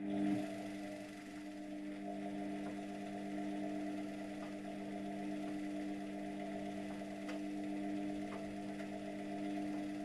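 Luxor WM 1042 washing machine's motor turning the drum at slow tumble speed: a steady hum that starts up abruptly, with a few faint ticks.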